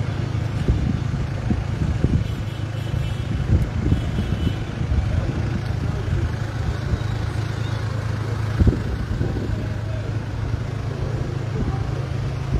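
Street ambience: a steady low hum of a running vehicle engine and traffic, broken by a few short low thumps, with faint voices in the background.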